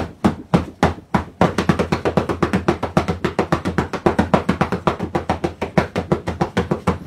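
Wooden drumsticks beating out a drum rhythm: even strikes at about three a second, breaking into a fast run of about eight strikes a second about a second and a half in.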